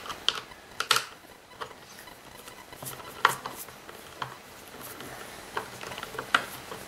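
Screwdriver working screws out of the plastic casing of a Kirby G4 vacuum: scattered, irregular sharp clicks and light knocks of metal on screw and plastic as the machine is handled and taken apart.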